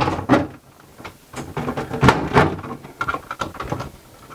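Sheet-metal ballast cover of a fluorescent light fixture being worked into place by hand: several knocks and scrapes of metal on metal as its back clip is seated.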